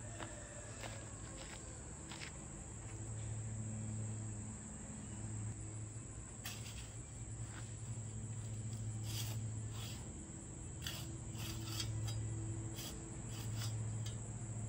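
Crickets or other insects trilling steadily in a high, even drone, with a low hum underneath and scattered short knocks.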